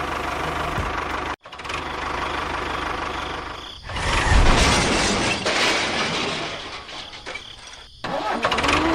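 Small engine running steadily, broken by abrupt edit cuts about a second and a half in and again near the end. From about four to eight seconds it is louder and rougher.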